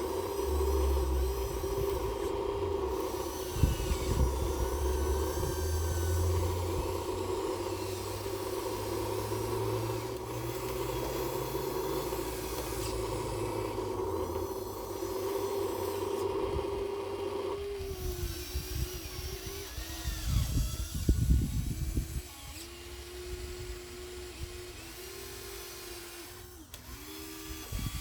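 Small electric motors of radio-controlled construction models whining, with some knocks and rumbling underneath. About two-thirds of the way through, the steady whine stops and a motor's whine starts rising and falling in short steps as the controls are worked.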